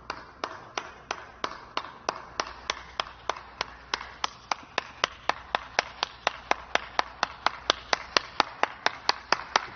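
A steady series of sharp, evenly spaced clicks, about three to four a second, coming slightly faster towards the end.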